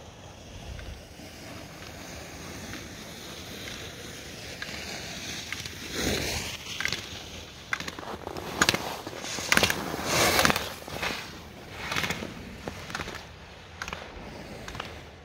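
Ski edges carving and scraping on packed snow through slalom turns, a hissing scrape swelling with each turn about once a second as the skier passes close. A few sharp clacks come as the flex gate poles are knocked aside.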